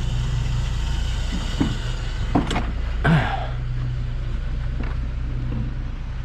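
A vehicle engine running steadily with a low hum, with a couple of brief knocks about halfway through.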